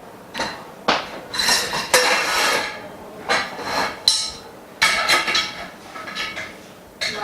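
Metal frame bars of a dust-free room knocking and clinking against each other as they are fitted together: a string of irregular knocks, several of them with a short metallic ring.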